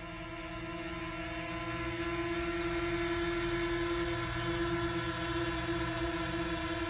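Instrumental music intro: a single sustained drone note with its overtones over a low rumble, swelling in gradually and then holding steady.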